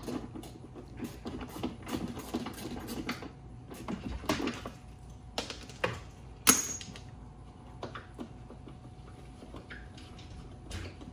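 A hard plastic and metal spare tire carrier being handled and worked loose from a tailgate: scattered clicks, knocks and rattles. A single sharp clank about six and a half seconds in is the loudest sound.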